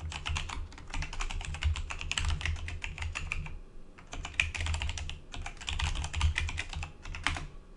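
Rapid typing on a computer keyboard: quick runs of keystrokes, with a pause about three and a half seconds in and short breaks after, as a terminal command is typed.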